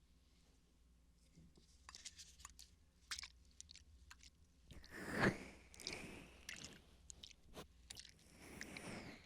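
Water bottle handled and squeezed close to the microphone: scattered crinkles and clicks, building to louder crunching squeezes about five seconds in and again near the end.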